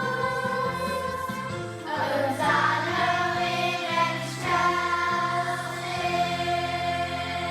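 School children's choir singing a Christmas carol over an instrumental accompaniment, settling into a long held chord in the second half.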